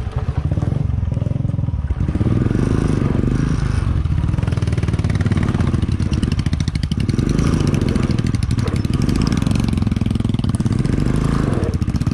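Motorcycle engine running under load as the bike pulls slowly along a rough gravel track. The rider says it is hardly pulling and is hard to get going again once stopped.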